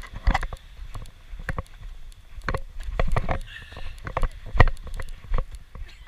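Irregular knocks, thumps and crunches of footsteps on pebbly sand and a handheld camera being moved about, a dozen or so, over a steady low rumble.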